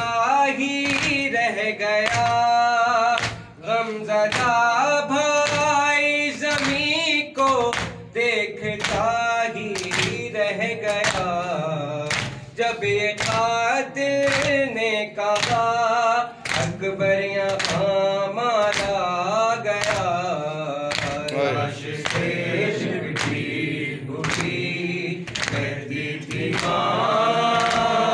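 Men's voices singing an Urdu noha, a lament for Ali Akbar: a lead reciter sings at the microphone and a group of men answers in chorus. Under it, rhythmic chest-beating (matam) sounds as sharp slaps about twice a second. Near the end the group chant comes in fuller.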